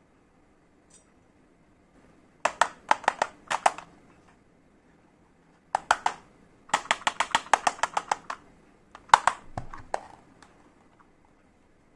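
Small toy kitchen set pieces tapping and clicking against each other as they are handled, in several short clusters, with a fast run of taps in the middle.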